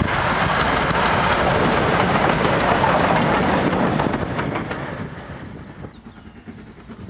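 A steam train passing close by: a loud rumble of wheels on the rails with a few sharp clicks, which fades away about five seconds in as the train moves off.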